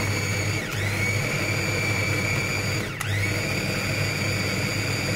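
Electric mini food chopper's motor running steadily with a high whine, chopping a thick soft-cheese spread mixture. Twice, just under a second in and about three seconds in, the motor slows and spins back up.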